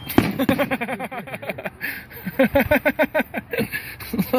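Several people laughing hard in rapid, repeated bursts.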